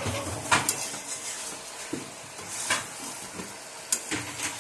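A metal spatula stirring and scraping chicken, potatoes and onions around a metal wok over a steady frying sizzle, with several sharper scrapes against the pan.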